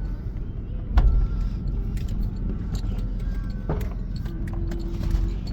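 Toyota Land Cruiser Prado driving over rough off-road ground: a steady low rumble of engine and tyres, with sharp knocks and rattles as it goes over bumps, the loudest about a second in.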